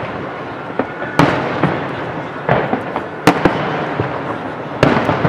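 Fireworks display: aerial shells bursting with three loud booms, each trailing off in a rumbling echo, with smaller cracks and pops in between.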